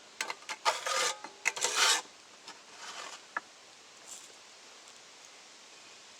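Rough scraping with several sharp knocks from work inside a wood-fired kiln's firebox, about two seconds long, followed by a few faint clicks.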